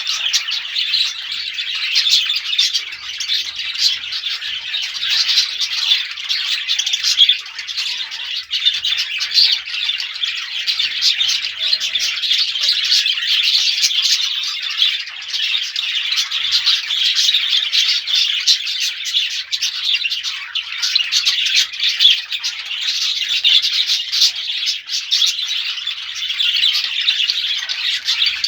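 Many small birds chirping and squawking at once, a dense unbroken chorus of short high calls.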